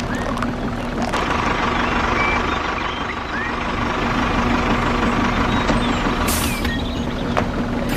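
A small motor runs steadily over an even hiss. A higher whine joins from about a second in until about six seconds in. Short bird chirps are scattered through.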